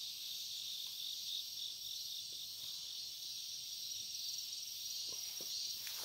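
Steady high-pitched chorus of crickets and other insects, finely pulsing, with a few faint taps near the end.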